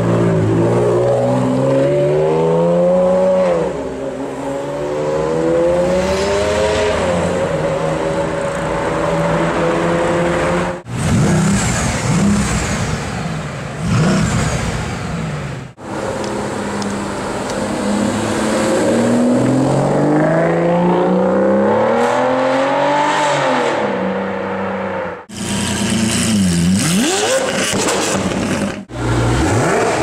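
High-performance supercar engines revving and accelerating hard in a series of short clips, each cut off suddenly. The first is a Ferrari Enzo's V12 pulling away in traffic, its pitch climbing through the gears and dropping at each shift.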